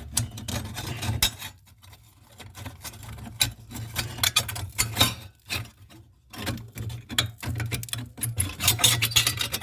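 Irregular rubbing, scraping and light clicks of hands pulling away a thin metal heat-shield sheet and handling metal parts after brazing, over a steady low hum.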